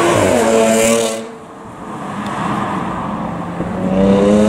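A car engine passing close, its pitch falling as it goes by and fading. Near the end, an engine note rises again, louder, as a car accelerates.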